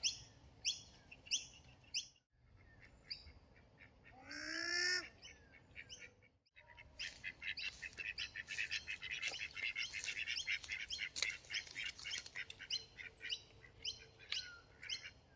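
Wild birds calling: rows of rapid high chirps, one drawn-out lower call about four seconds in, and dense chirping through the second half. The sound drops out abruptly twice, at about two and six and a half seconds in.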